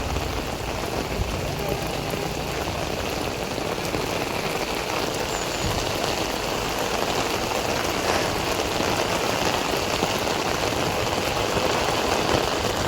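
Steady rain falling, an even rushing hiss throughout.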